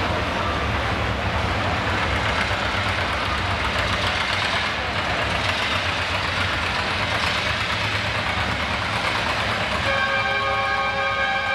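John Deere A two-cylinder tractor engine running hard under load while pulling a weight-transfer sled, a steady low throbbing rumble. About ten seconds in, a steady high-pitched whine joins it.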